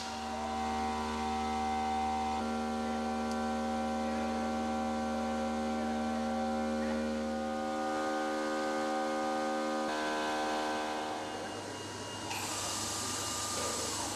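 CNC stone-working machine's spindle running, a steady electric hum and whine. Its pitch steps to a new set of tones about two seconds in and shifts again near eight seconds. The whine fades near the end, giving way to a hiss of water spray.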